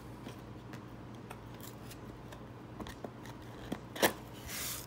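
Cardboard graphics card box being handled and opened: scattered small ticks and rustles, a sharp snap about four seconds in, then a short sliding swish as the packaging comes apart.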